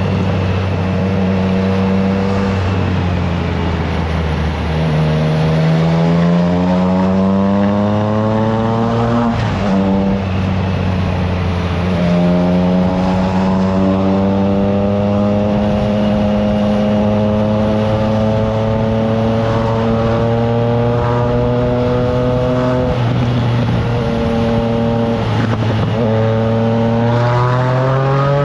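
Triumph Trident 660's inline three-cylinder engine through a FireTong exhaust, heard from the bike under way. The engine note climbs through a gear about five seconds in, drops sharply near ten seconds, then holds at a steady cruise before two brief dips and another climb near the end.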